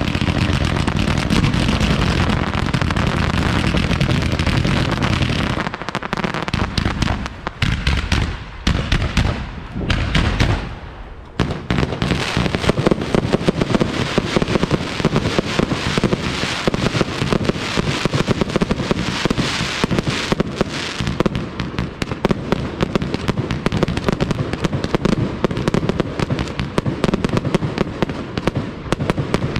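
Fireworks display: a dense barrage of shell bursts and crackling bangs. It thins to scattered bursts with short gaps between about six and eleven seconds in, then resumes as a continuous rapid salvo.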